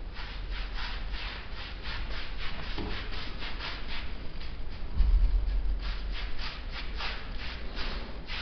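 Paintbrush stroking sand paint onto a wall: a quick, even run of brushing strokes, about four to five a second, with a short lull around the middle. A low thump comes about five seconds in.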